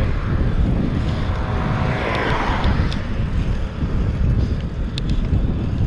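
Wind buffeting the camera's microphone while riding a bicycle, over a steady low rumble from the tyres on the road. A couple of sharp clicks come about five seconds in.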